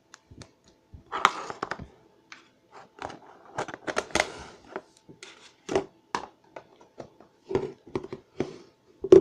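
Plastic food tubs and their snap-on lids handled on a tabletop: an irregular run of clicks, knocks and rustles as slime is put into a tub and lids are pressed on.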